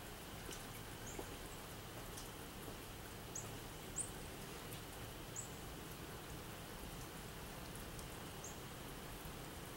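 A small bird's short, high chirps, about six of them at uneven intervals, the loudest about four seconds in. Under them runs a low, steady rumble.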